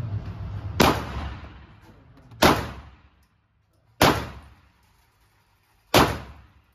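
Four single shots from a Canik TTI Combat 9mm pistol, fired slowly about one and a half to two seconds apart, each with a short echoing tail from the indoor range.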